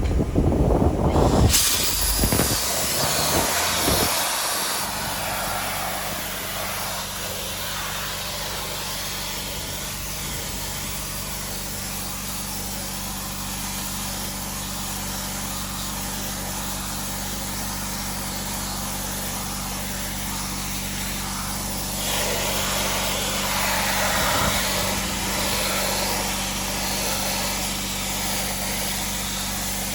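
Sandblaster running: a steady hiss of compressed air and abrasive starts about a second and a half in, over a steady motor hum that comes in a few seconds later. The hiss grows stronger about 22 seconds in.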